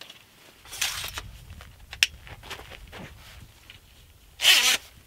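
Clicks and rattles of a folding metal table frame being opened out, with a short rush of noise about a second in and a louder brief scraping rush near the end.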